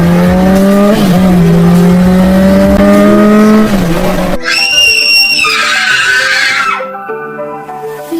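Car engine revving with its pitch rising steadily for about four seconds, then a high tyre screech lasting about two seconds that drops in pitch as it ends, over background music.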